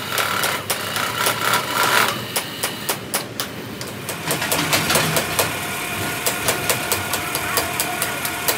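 Workshop metalworking machine running with a steady whine, with many sharp metallic clicks and ticks over it.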